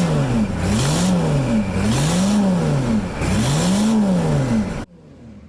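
Freshly rebuilt 6.2-litre V8 diesel engine of a 1983 Chevy Suburban running after its first start, revved up and down repeatedly, its pitch rising and falling about every second and a half. The sound drops away suddenly near the end.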